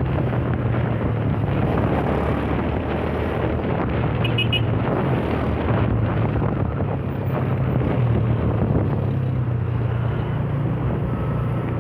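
Yamaha Fazer 150 single-cylinder motorcycle engine running steadily, with wind buffeting the microphone.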